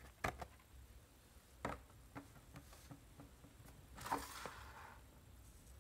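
Faint handling noise: a few scattered light taps and a brief soft rustle about four seconds in, from foil trading-card packs and cards being handled.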